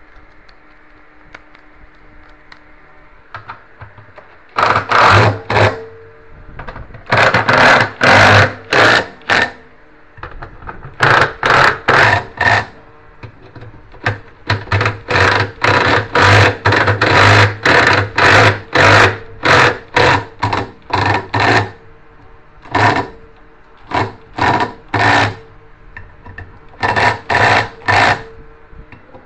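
Electric screwdriver motor running in many short bursts, each about half a second, in clusters separated by brief pauses, as screws are driven or backed out.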